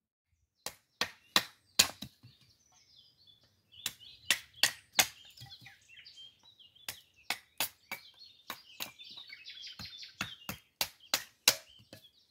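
Hatchet splitting kindling on a wooden chopping block: about twenty sharp strikes, in quick runs of three or four with short pauses between. Birds chirp behind.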